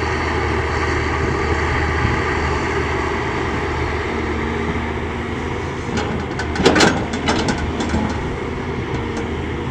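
CAT 320D excavator's diesel engine running steadily under load. A little past the middle comes a loud burst of clattering impacts: rocks crashing and scraping as they are loaded into the dump truck.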